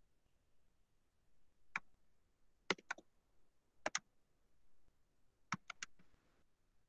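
Sharp clicks at a computer: a single click, then two quick pairs, then three in quick succession, followed by a brief faint hiss.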